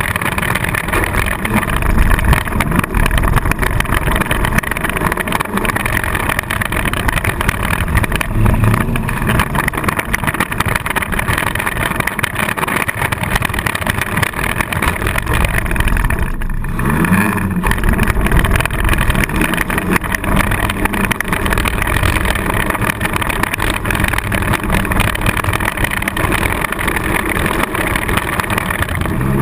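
Four-cylinder demolition derby car's engine running loud and rough, heard from inside the car. A little past halfway it drops briefly, then revs back up with a rising pitch.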